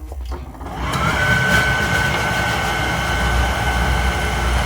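Oil furnace burner starting up: about a second in its motor and blower come on with a rising whine that settles into a steady tone over a continuous rumble.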